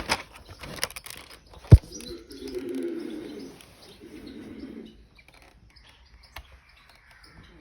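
A pigeon cooing, a low warbling coo of about two and a half seconds starting a little after two seconds in. Just before it comes a single sharp knock, the loudest sound.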